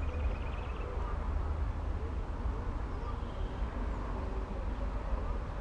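Outdoor field ambience: a steady low rumble, faint distant voices, and a brief high trill of rapid ticks at the very start.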